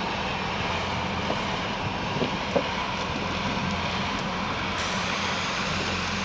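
A steady engine drone mixed with noise, with a couple of faint brief ticks about two seconds in.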